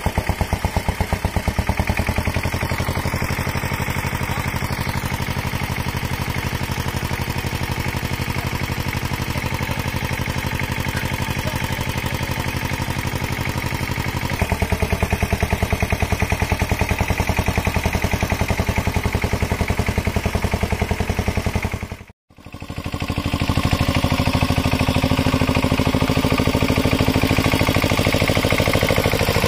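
Single-cylinder diesel engine of a two-wheel walking tractor (power tiller) running with a rapid, even chugging beat while it works through paddy mud. The sound cuts out abruptly for a moment about 22 seconds in, then the engine goes on.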